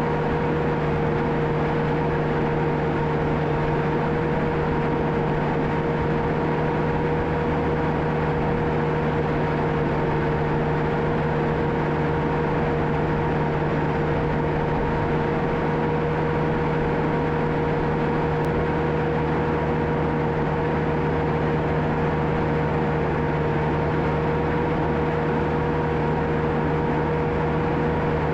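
John Deere 650K crawler dozer's diesel engine running steadily under work, with a constant whine over the engine's low drone.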